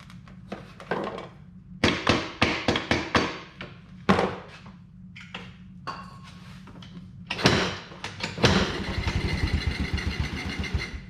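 Several sharp clunks, then a rapid grinding buzz for the last couple of seconds: a Can-Am's starter trying to turn over an engine that has seized up, a starter the owner judges needs replacing.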